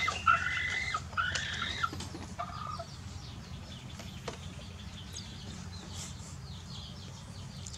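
A hen clucking, a few short calls in the first three seconds, then fading to faint high chirps over a low steady hum.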